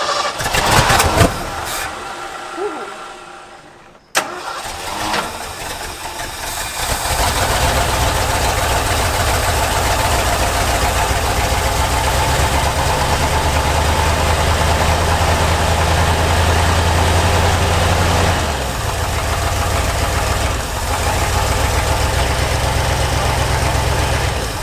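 Ford 391 FE V8 in an old F750 grain truck being cranked, catching after a few seconds and then running steadily, its speed rising for a while in the middle and dropping back. The Holley four-barrel carburetor has stuck floats and is overflowing with gas as it runs.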